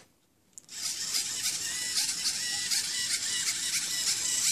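A small LEGO Mindstorms line-follower robot's electric drive motors and gears start up about a second in and run with a steady high whir and fine rapid ticking as it drives along the line.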